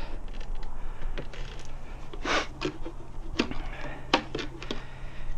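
Tire spoons levering an old Pirelli Diablo Supercorsa motorcycle tire's bead off the rim by hand: scattered clicks and knocks with a few short scrapes of tool, rubber and rim. A steady low hum sits underneath.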